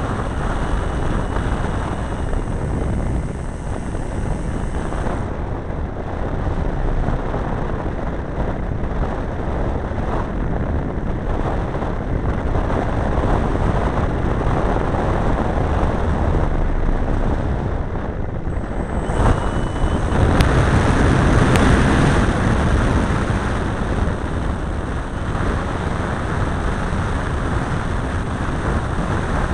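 Engine of a large radio-controlled model airplane heard from a camera on board, mixed with rushing wind on the microphone. It gets louder about two-thirds of the way through as the plane climbs away after a touch-and-go.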